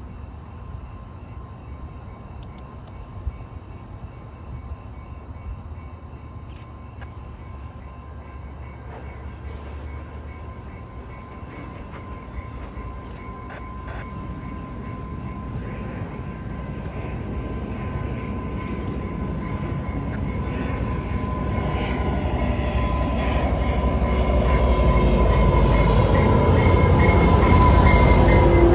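A train approaching: a low rumble and a steady high ringing tone from the rails and wheels, growing steadily louder and loudest near the end.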